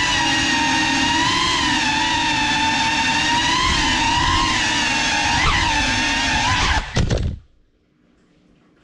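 GEPRC Cinelog 35 cinewhoop drone's brushless motors and ducted propellers whining loudly, the pitch wavering up and down with the throttle. About seven seconds in, a brief clatter as it crashes, and the motors cut out.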